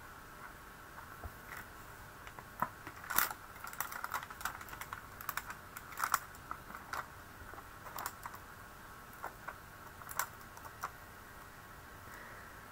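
Irregular light plastic clicks and crackles as a clear photopolymer stamp sheet and its plastic case are handled and stamps are peeled off, busiest in the middle and thinning out near the end.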